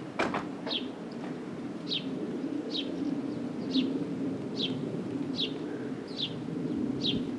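A small bird repeating a short, falling chirp about once every second, steady and evenly spaced, over a continuous low rumble. A couple of sharp clicks right at the start.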